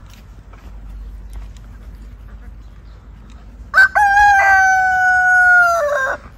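Rooster crowing once, about four seconds in: a short first note and then a long held call that drops in pitch as it ends.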